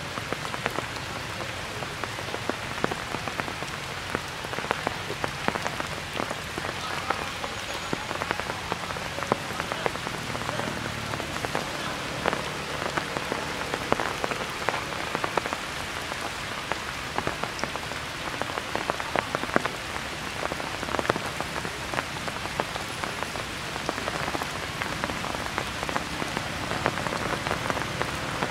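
Steady rain falling on forest leaves, a continuous hiss dotted with many sharp individual drop hits.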